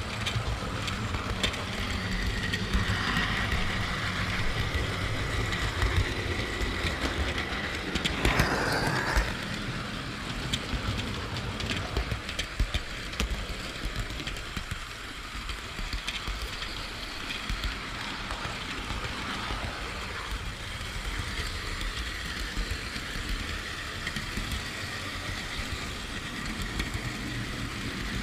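Model train running on its track, picked up by a camera riding on one of its wagons: a steady rumble of wheels on rail with small rapid clicks over the track, and a high steady whine through the first third.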